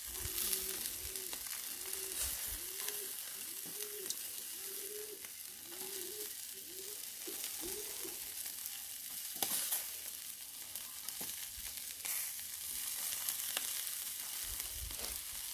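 Chicken drumsticks sizzling on a hot charcoal grill, a steady hiss with a few sharp pops of spitting fat in the second half. A run of short, soft, low hoots repeats through the first half.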